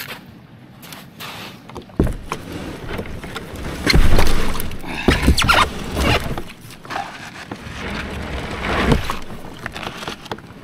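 Kayak paddling: a double-bladed paddle dipping and pulling through lake water, with splashes and drips, several strokes loudest about four to six seconds in and again near nine seconds. A sharp knock about two seconds in.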